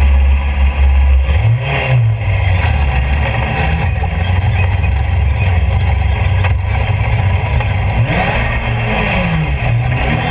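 Golf cart powered by a Suzuki GSX-R 750 inline-four motorcycle engine, driving over sand. The engine runs steadily, revs up about one and a half seconds in, and rises and falls again near the end.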